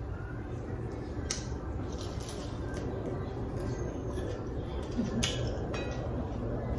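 A metal fork clicking against a ceramic dinner plate a few times as food is picked up and eaten. A steady low rumble runs underneath.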